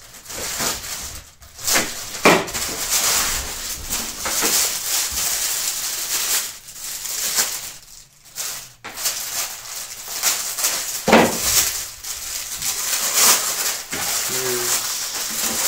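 Plastic packaging crinkling and rustling irregularly as gear is handled and unwrapped.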